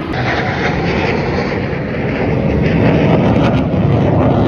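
Jet aircraft engine roar from a military jet flying over during an air show display, a steady rush that grows louder about three seconds in.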